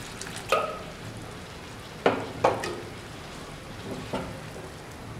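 Rajma (kidney-bean) curry sizzling in a nonstick pan as water is poured in and stirred with a silicone spatula, with a few light knocks on the pan: one about half a second in, two close together around two seconds, and one near four seconds.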